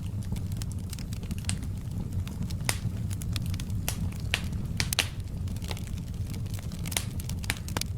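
Fire crackling in a fireplace: irregular sharp pops and snaps, a dozen or so at uneven intervals, over a steady low rumble of the flames.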